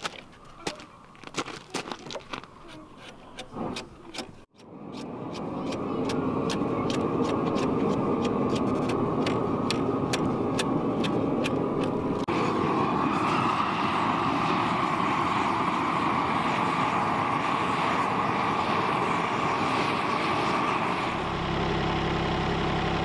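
Quick sharp knocks, several a second, for the first few seconds. Then a loud, steady machine noise, and near the end a tractor engine idling low.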